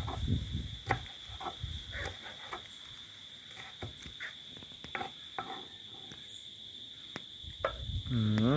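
Knife chopping scallion on a wooden cutting board: irregular single knocks, a little over one a second, over a steady high drone of insects.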